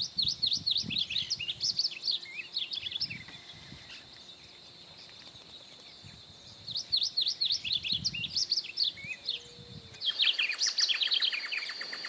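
Male southern yellowthroat (black-faced yellowthroat) singing its loud song: a phrase of rapid, warbled high notes for about three seconds, a pause, a second phrase, and a third phrase starting near the end.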